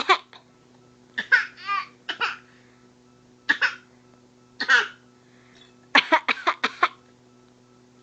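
Short deliberate fake coughs from a nine-month-old baby and an adult imitating him, mixed with laughter, coming one or two at a time with pauses between. About six seconds in comes a quick run of five or so.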